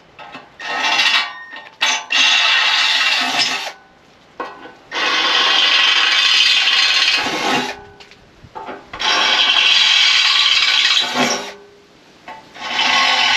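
Power drill boring through steel plate in five runs of one to three seconds each, with short pauses between, as the holes are enlarged a bit size at a time toward 3/8 inch.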